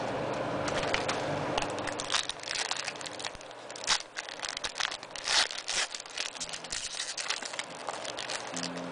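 Foil trading-card pack wrapper being torn open and crumpled in the hands: a run of sharp crinkles and crackles, loudest about four and five seconds in.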